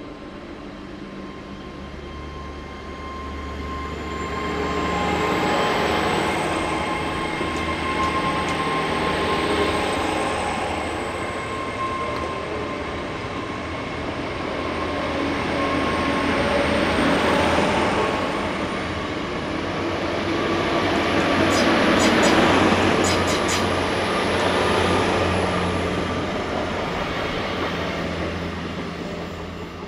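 GWR Hitachi Class 800 bi-mode train running past at close range on its underfloor diesel engines, the sound swelling and easing several times as the coaches go by, over a steady low engine hum. A high whine rises slowly through the first two-thirds, and a quick run of sharp ticks comes a little past the middle.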